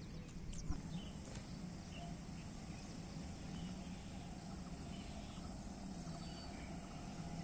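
Faint open-air ambience: a steady low hum under an even background hiss, with a couple of short high chirps in the first second.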